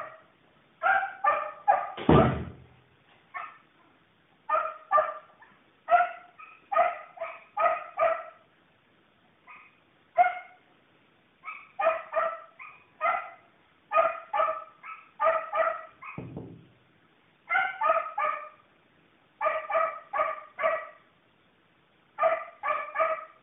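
Dog barking over and over in quick runs of three to five fairly high barks with short pauses between runs. Two dull low thumps come in, one about two seconds in and another after about sixteen seconds.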